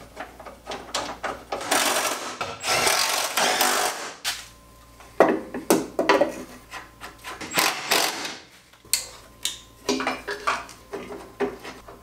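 Work on car body hardware: quick ratchet-like clicking, then a power tool running for about two seconds, followed by scattered sharp metal knocks and clanks as parts are handled.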